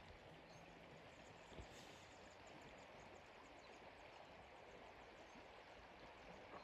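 Near silence: the faint, steady rush of a river flowing.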